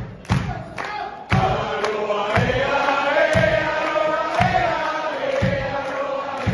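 Hall crowd singing along together in a drawn-out chant over live band music with a steady bass-drum beat about twice a second. The singing swells about a second and a half in.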